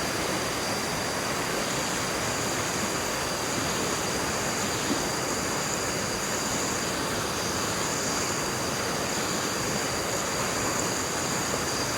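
Steady rushing water, with an even high-pitched whine running through it.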